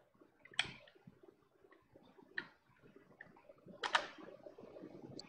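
Three sharp, separate clicks about a second and a half apart, the last one the loudest, about four seconds in, over faint room noise.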